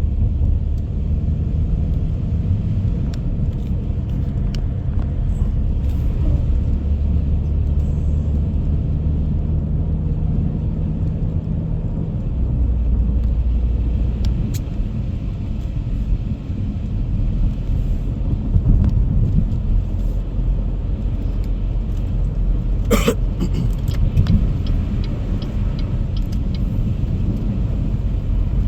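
Car driving at freeway speed, heard from inside the cabin: a steady low rumble of engine and tyres on the road. A single sharp click about three-quarters of the way through.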